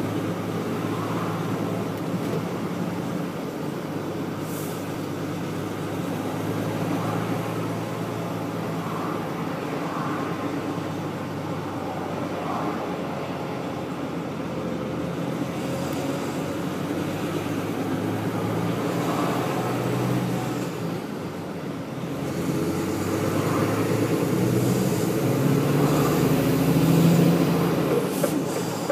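Engine and road noise of a moving vehicle heard from inside it, a steady drone that grows louder in the last few seconds.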